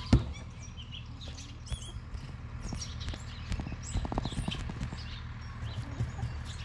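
Birds chirping, with a sharp knock just after the start and a quick run of softer knocks about four seconds in.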